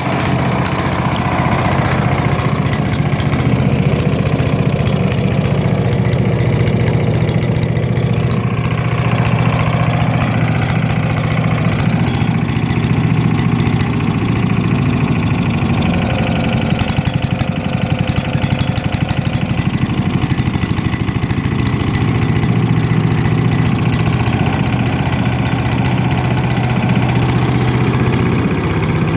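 Wood chipper's engine running steadily on compressed biogas fed into the carburettor. Its pitch sags briefly about halfway through, then recovers.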